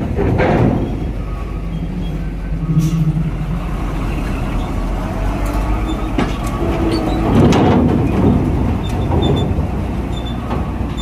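Trucks driving off a ferry's ramp, engines running as they pass, with a couple of sharp knocks about six and seven and a half seconds in.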